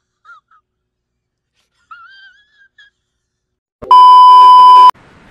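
A loud, steady one-second test-pattern bleep tone at about 1 kHz, starting a little before four seconds in and cutting off sharply. About two seconds in there is a faint, wavering high whine.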